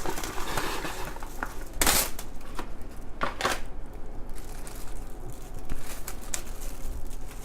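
Plastic cling wrap being pulled off the roll, torn and crinkled over a plate, with a few short, sharp rustles about two and three seconds in.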